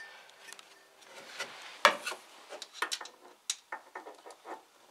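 Irregular metallic clicks and knocks of a socket wrench being fitted and worked on a sensor's retaining bolt on an Audi V6 engine block, with one sharp knock about two seconds in and a run of smaller clicks after it.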